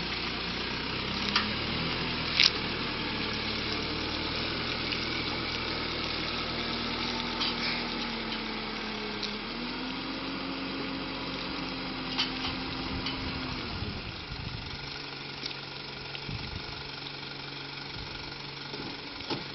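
Tow truck's engine pulling a boat trailer with a 26-foot cabin cruiser up out of the water. Its pitch steps up about halfway through and then drops back to a steady idle, with a few sharp clanks along the way.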